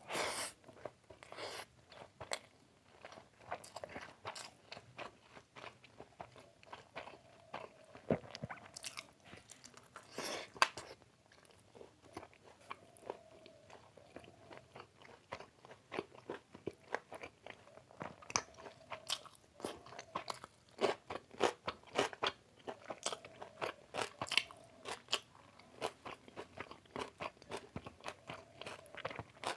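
Close-up eating sounds: a person biting and chewing chicken biryani and a chicken leg, with many quick, irregular mouth clicks and smacks.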